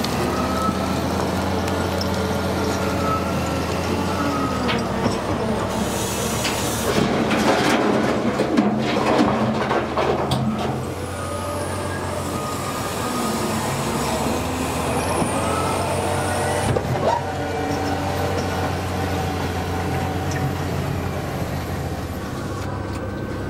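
A load of rock tipped from a Caterpillar 992K wheel loader's bucket into a haul truck's bed: a heavy clattering rush of stones with sharp strikes, loudest about seven to ten seconds in, with another single strike later. Under it the engines run steadily, one of them rising and falling in pitch.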